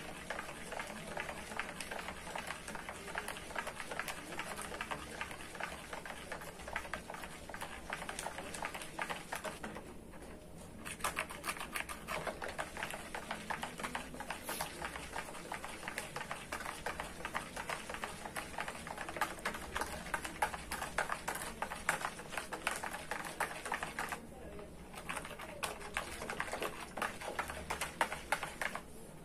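A plastic stirring stick clicking and knocking rapidly against the walls of a plastic pitcher while Texapon 70 paste is stirred into salted water to dissolve it. The clicking pauses briefly about ten seconds in and again about twenty-four seconds in.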